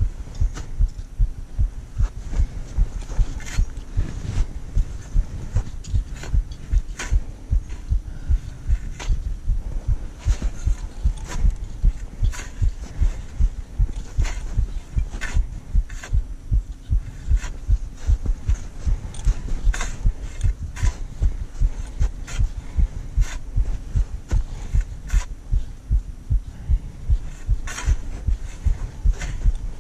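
A climber's footsteps on a snowy ascent: a steady run of dull thuds about two a second, with sharper crunching clicks mixed in.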